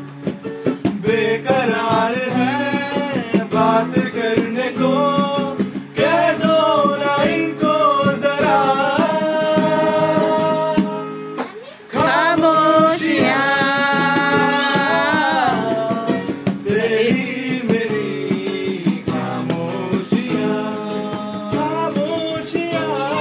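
Two men singing a song together to a strummed acoustic guitar, with a short break a little before halfway, after which they come back in louder.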